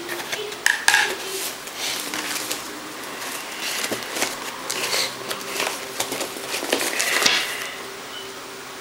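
Cardboard shipping box being opened with a Mora 2010 knife: irregular cutting and scraping at the tape and cardboard, with rustling and several sharp clicks and knocks as the box is handled.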